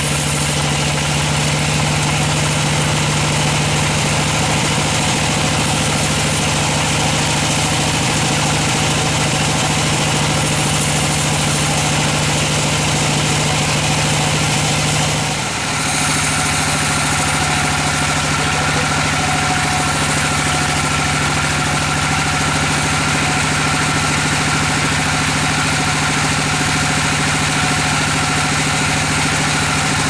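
Band sawmill running steadily with its blade cutting lengthwise through a long teak log. A constant machine hum sits under a broad hiss from the cut, with a brief dip about halfway through.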